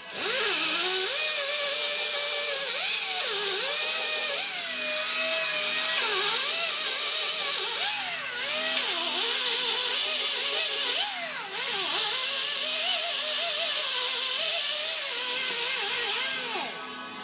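Right-angle die grinder with a medium-grit Roloc abrasive disc grinding the edges of drilled holes in a steel subframe. A high grinding hiss runs under a motor whine whose pitch keeps sagging and recovering as the disc is pressed into the metal and eased off, with brief let-offs twice.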